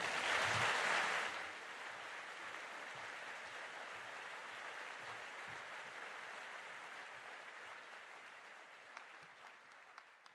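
Audience applauding, loudest in the first second or so, then steady and slowly fading toward the end.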